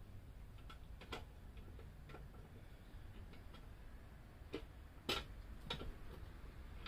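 Scattered faint metallic clicks of an Allen key working a motorcycle fender-strut screw a little at a time, with the loudest click about five seconds in.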